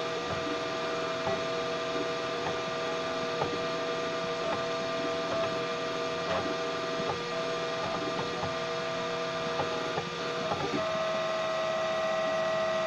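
Homemade 3D printer's stepper motors whining steadily as the print head lays down PLA, the pitched hum broken by brief pauses and faint ticks about once a second. Near the end the whine gets louder and holds one pitch.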